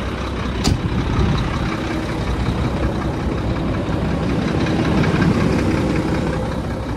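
A heavy truck's diesel engine idling with a steady low rumble, with a single sharp click about a second in.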